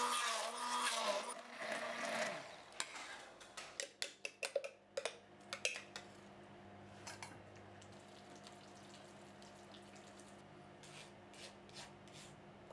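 Stick blender motor running for about two seconds as it purees raspberries in a glass jug, then stopping. Light clinks and taps of glass and metal follow, with faint pouring of the puree into a metal sieve and a spoon working it through.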